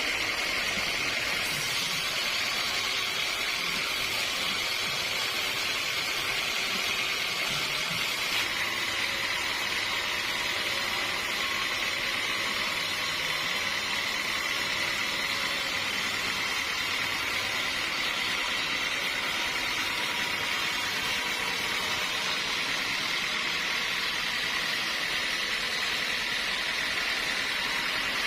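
Sawmill saw running steadily: an even, high-pitched whine with a hiss, unbroken throughout, shifting slightly in pitch about eight seconds in.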